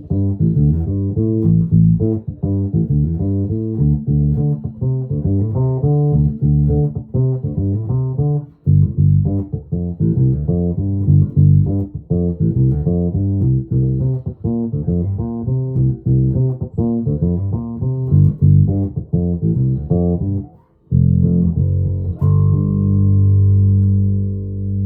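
1996 Alembic Epic four-string electric bass played on its bridge pickup with the treble cut and the bass fully boosted: a busy run of plucked notes, with short breaks about 9 and 21 seconds in, then held notes left ringing near the end.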